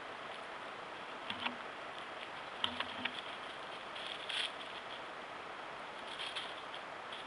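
Steady hiss of a trail camera's microphone, with a few soft taps and rustles about a second and a half in, around three seconds in, and again a little after four seconds.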